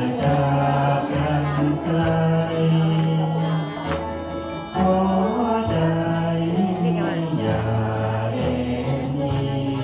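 Karaoke backing track with bass and a steady beat, and a man singing along into a microphone.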